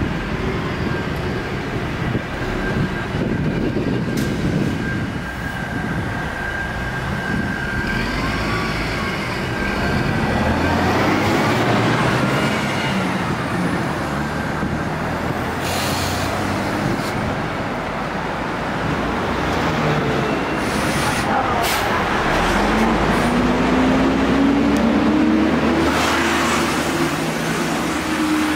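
Daewoo Royal City diesel city bus running amid street traffic, its engine note rising twice as it pulls away from the stop.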